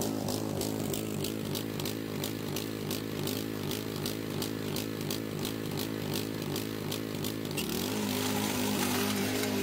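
Riding lawn mower engine running with a regular pulsing beat; about three-quarters of the way through the note steadies and grows a little louder and hissier as the cutting blades are engaged.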